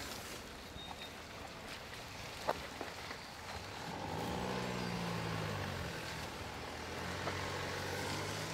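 Mercedes-Benz GLC SUV's engine running as it creeps over rough off-road ground, the engine note rising and falling about four seconds in as it takes a bank, with a few sharp clicks along the way.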